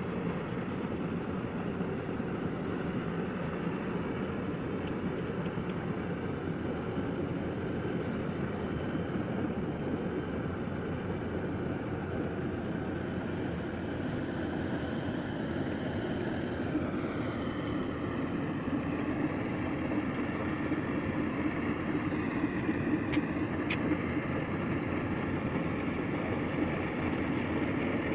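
Yanmar 850 combine harvester running steadily as it cuts and threshes rice. Its engine and machinery make a continuous mechanical drone, and its note drops slightly about two-thirds of the way through. Two short sharp clicks come near the end.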